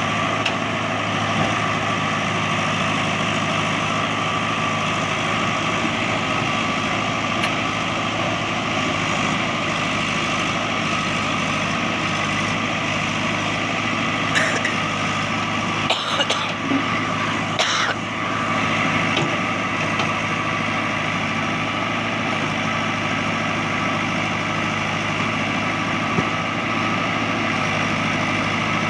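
JCB backhoe loader's diesel engine running steadily, with a few short knocks about halfway through.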